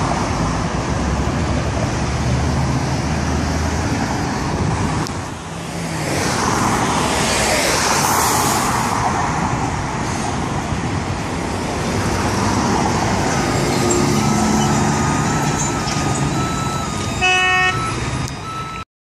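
Steady traffic on a busy city street, cars and trucks driving past, with a short horn toot near the end.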